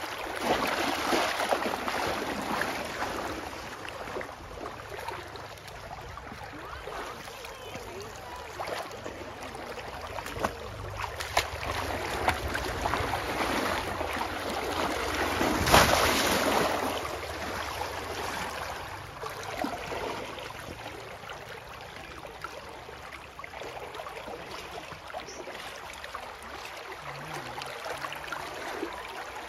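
Pond water splashing and sloshing as a bamboo polo fish trap is plunged into shallow water and a person wades, with the loudest splash about halfway through.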